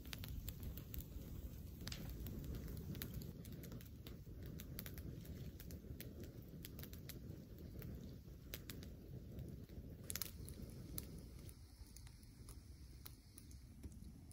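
Wood campfire crackling, with irregular sharp pops and snaps over a low steady rumble; a slightly louder cluster of pops comes about ten seconds in.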